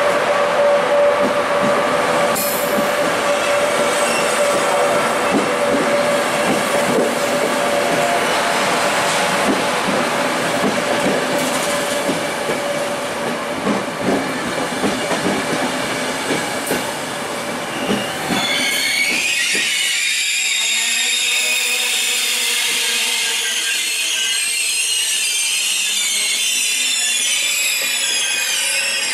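Intercity Notte passenger coaches rolling past: a steady rumble with repeated clatter of wheels over the rail joints. About two-thirds of the way in the rumble falls away and a high, wavering wheel squeal takes over.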